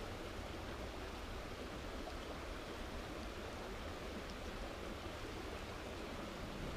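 Mountain river water rushing steadily, an even hiss with no breaks.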